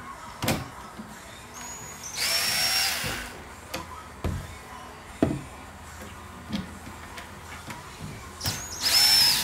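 Cordless drill running in two short bursts of about a second each, one a couple of seconds in and one near the end, with a steady high motor whine, as it turns screws in a plywood storage box. Light knocks and clicks of handling come in between.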